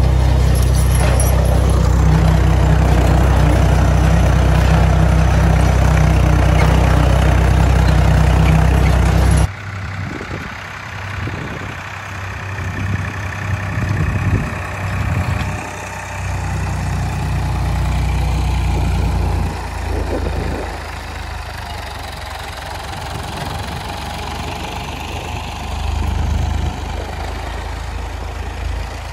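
Massey Ferguson 255 tractor's diesel engine running steadily. About nine seconds in, the sound drops suddenly to a quieter, more uneven engine sound.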